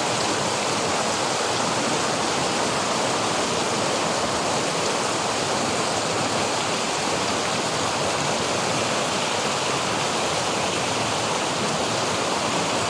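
Waterfall: water falling and splashing, a loud, steady rush with no let-up.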